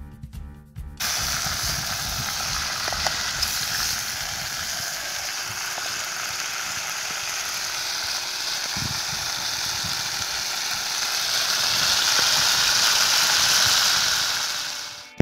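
Pigeon meat sizzling as it fries in a pot over a wood fire: a steady hiss that starts about a second in, swells a little and fades out near the end.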